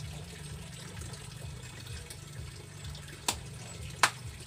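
Water splashing and trickling as a fish is cleaned in a basin, with two sharp knocks under a second apart near the end.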